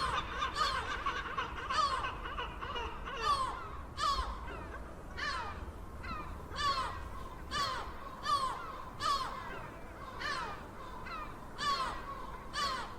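Seagulls calling: harsh cries about once a second, each dropping in pitch. Several birds overlap in the first few seconds.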